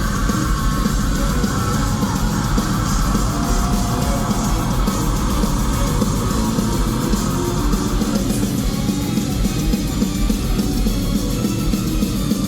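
Live rock band playing loudly, with electric guitar and drums driving the song.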